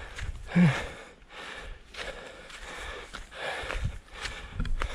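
A hiker climbing a steep dirt trail: footsteps on dry ground and heavy breathing, with a short grunt that falls in pitch about half a second in.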